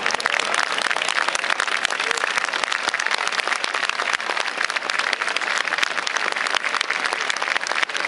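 Large crowd applauding with dense, steady clapping.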